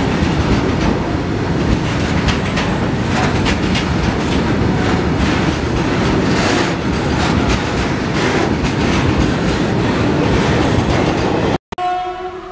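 Freight train of tank wagons rolling past: a steady rumble of wheels on rail with a rapid clickety-clack over the rail joints. Near the end the sound cuts off suddenly, and a short horn tone follows and fades.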